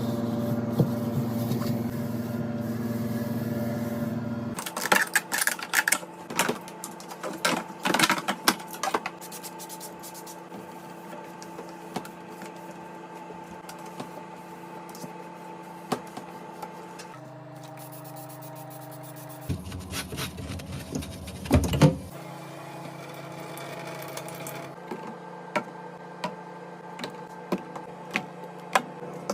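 Clicks, taps and rustles of containers and packaging being handled, in several short segments each over its own steady hum; the busiest handling comes early on, with a loud burst of knocks a little past two-thirds of the way through.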